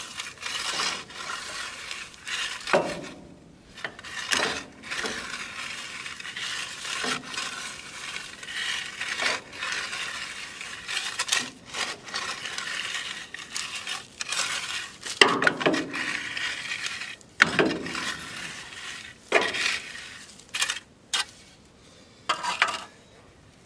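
Steel shovel scraping and digging in crushed gravel, stones clinking and grating against the blade in repeated uneven strokes, with a few louder scrapes and knocks in the second half.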